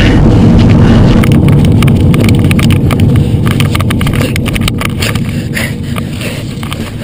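Loud rumbling handling noise and wind buffeting on a handheld camcorder's microphone as it is shaken hard by someone moving fast through woods, with many quick knocks and crackles, easing a little near the end.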